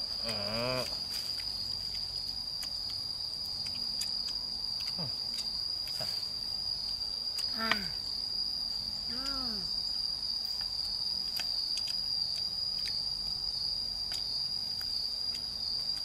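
A steady high-pitched insect trill running without a break, with a few short murmured voice sounds about half a second in and again around eight and nine seconds, and faint scattered ticks.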